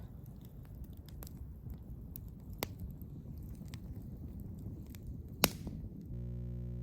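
Campfire crackling: scattered sharp pops over a low rumble, with one loud pop about five seconds in. A steady low hum takes over near the end.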